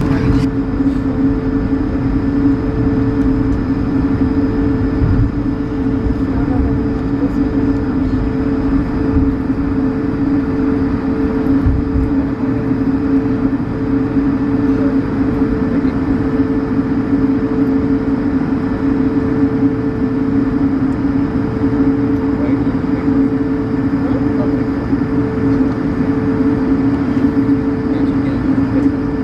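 Airbus A220-100 airliner engines running steadily, heard from inside the cabin as an even drone with a strong two-note hum.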